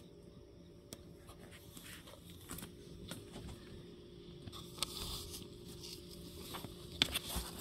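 A cat shifting and rubbing against a cardboard box: faint scattered crackles and scrapes that get busier after a couple of seconds, with a sharper click about seven seconds in, over a steady low hum.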